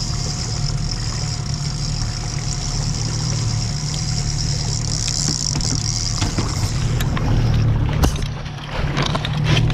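Boat's outboard motor running steadily at low speed, with a steady high hiss over it that stops about three-quarters of the way through. A few knocks and clicks come near the end.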